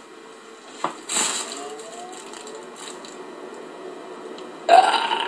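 Rodent caught in a wooden snap rat trap, scrabbling and gnawing against the trap's wood and wire. There is a sharp crack about a second in, followed by steady scratching.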